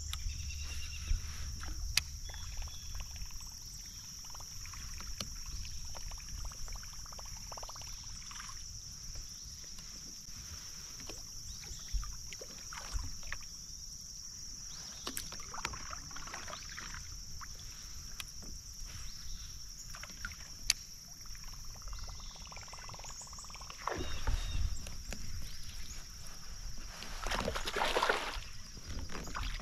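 Kayak on a creek: scattered paddle dips and water splashes, louder near the end, over a steady high-pitched hum.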